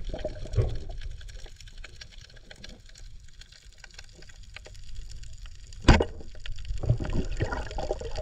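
Muffled underwater water noise: a low rumble with faint scattered crackling, and one sharp click about six seconds in.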